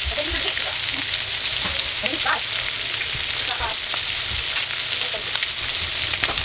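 Chicken pieces frying in oil in a cast-iron skillet, a steady sizzling hiss.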